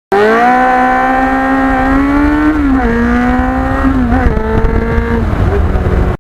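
High-revving vehicle engine pulling hard under load: its pitch climbs slowly, drops at a gear change about two and a half seconds in, and dips again around four seconds. It starts and cuts off abruptly.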